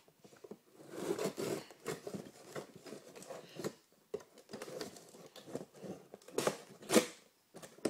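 Knife cutting through a cardboard box, with irregular scraping and tearing strokes and small clicks, and two sharper, louder rips near the end.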